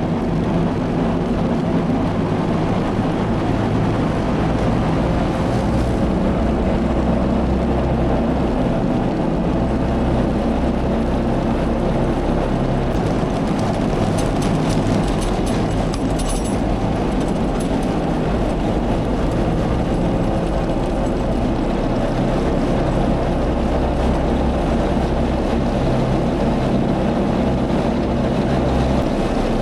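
A large farm engine running steadily at a constant speed. Light clicking and rattling comes in a little before the middle and lasts about three seconds.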